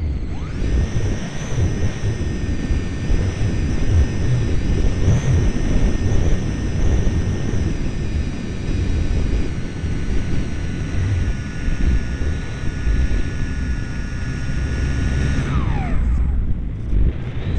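Model airplane's motor and propeller whining steadily at high throttle, heard from a camera on the airframe under heavy wind rush. The whine sags a little in pitch, then drops away quickly near the end as the throttle is cut, leaving only the wind rush.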